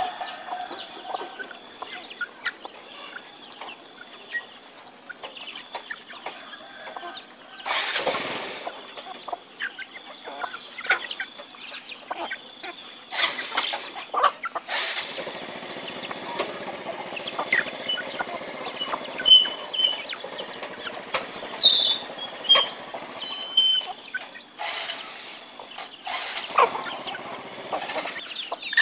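A flock of chickens feeding: hens clucking and chicks peeping in short high calls. There are scattered small clicks and a few brief bursts of wing flapping.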